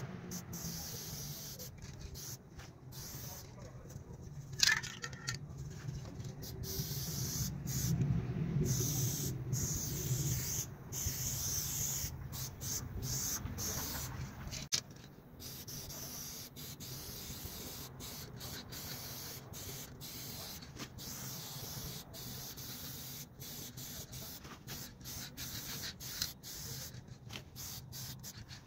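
Aerosol spray paint cans hissing onto a wall in short and longer bursts, stopping and starting many times as graffiti letters are filled in.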